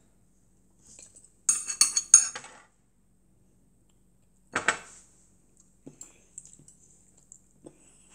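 Stainless steel chopsticks clinking and scraping against a ceramic rice bowl as rice is picked up: a quick cluster of clinks about a second and a half in, another single clink near the middle, then faint small taps.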